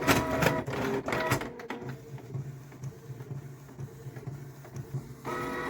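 Canon Pixma G620 inkjet printer printing a photo. Its motors whine and click at the start, a steady mechanical running sound follows through the middle, and the motor whine returns near the end.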